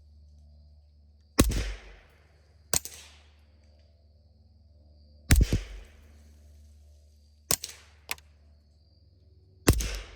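Suppressed subsonic pistol shots, six in about eight seconds, from a Glock 19 9mm and a Taurus TX22 .22 LR. Three of the reports are louder with a deep thump and a longer tail, and the other three are sharper, thinner and quieter.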